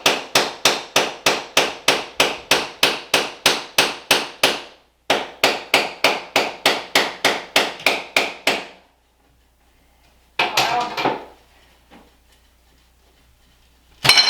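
Rapid, evenly spaced hammer blows on ceramic backsplash tile, about four a second, knocking the tile loose from the wall, with a brief pause about five seconds in. The hammering stops about nine seconds in, followed by a short clatter about ten seconds in and a louder one near the end.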